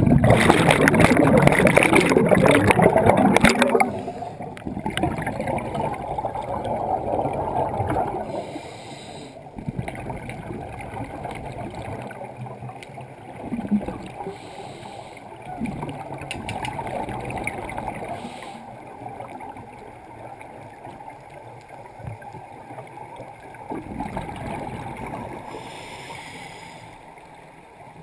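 Scuba diver breathing through a regulator underwater. It opens with a loud rush of exhaled bubbles for about four seconds, then goes on in quieter repeated cycles of hissing inhales and gurgling exhalations.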